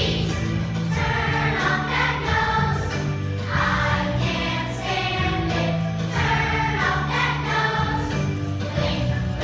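A choir of second-grade children singing together over a recorded or played musical accompaniment with a steady bass line.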